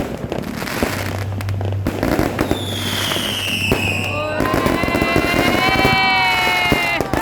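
Fireworks going off, with rapid pops and crackles throughout. About two and a half seconds in, a whistle slides down in pitch. It is followed by a long, steady whistling tone of several pitches that stops near the end.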